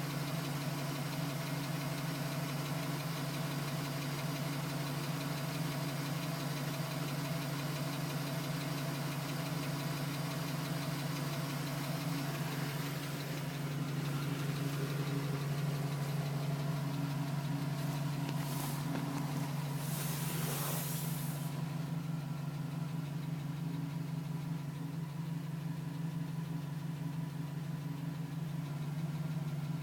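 2010 GMC Sierra engine idling steadily with a tapping from the engine, which the owner suspects is piston slap. Two short hisses come in about two-thirds of the way through.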